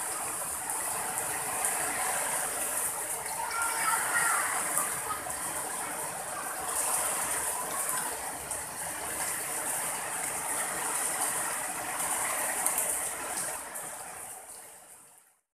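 Heavy rain falling steadily on garden plants and leaves, a dense, even hiss that fades out near the end.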